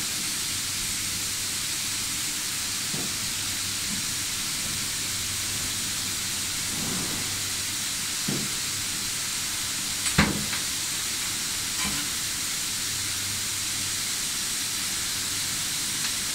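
Steady sizzling hiss of a welding arc as stainless-steel support rods are welded to a mixer's shaft collar, broken by a few short metallic knocks, the loudest about ten seconds in.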